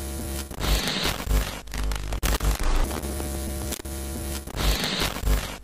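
Glitchy electronic outro track: a steady static-like hiss over a deep, pulsing bass, with a brighter burst of hiss about a second in and again near the end.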